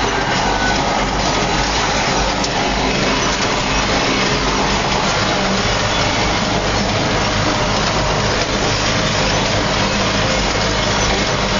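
Belarus 800 tractor's diesel engine running steadily while pulling a seed drill across the field, heard from inside the cab.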